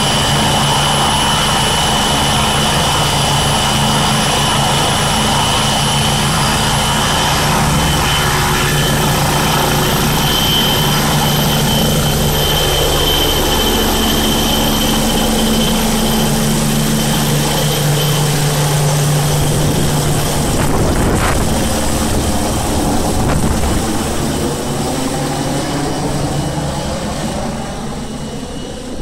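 MBB Bo 105 helicopter with twin Allison 250-C20B turboshafts lifting off and climbing away: steady turbine whine over rotor noise, fading near the end as it flies off.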